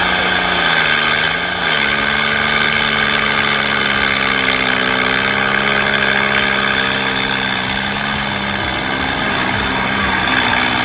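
A vehicle's engine running steadily; its pitch dips and rises briefly about a second in, then holds.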